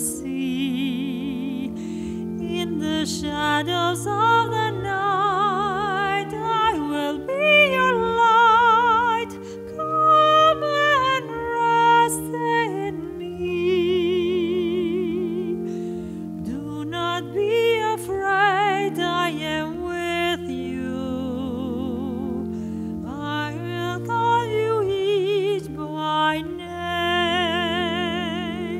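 Church music: a solo melody sung with a wide, even vibrato over long held chords.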